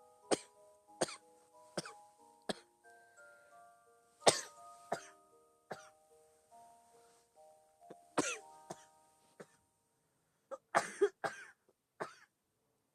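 A girl coughing repeatedly, an asthmatic cough: short, dry coughs coming singly and in pairs, the loudest about four seconds in, ending in a quick cluster of four and then one last cough. A soft, chiming background melody plays under the first three-quarters and then stops.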